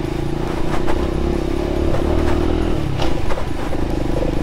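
Aveta RangerMax Explorer 130 moped's small engine running at a steady speed over a rough dirt trail, with a few sharp knocks and rattles from the bumps.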